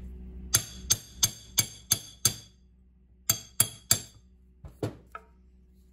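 Hammer tapping a steel plate laid over a large socket to drive a new crankshaft seal into an engine's front cover. Six quick ringing metal taps, a short pause, three more, then a few lighter taps.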